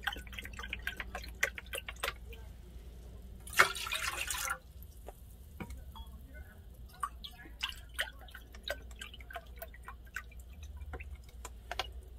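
Chicken broth heating in a small saucepan on a stovetop, small bubbles popping and ticking irregularly as it comes toward a simmer. A sharp knock and a brief hiss come about three and a half seconds in, over a steady low hum.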